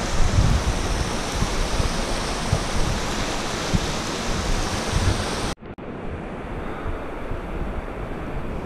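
Steady rushing outdoor noise of wind buffeting the microphone over moving water, with irregular low rumbles. About five and a half seconds in it breaks off abruptly, then comes back quieter and duller.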